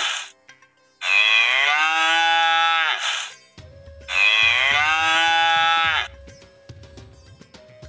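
A cow mooing: the tail of one moo at the very start, then two long moos of about two seconds each, each dropping in pitch at the end. Soft background music with a steady beat comes in about halfway through.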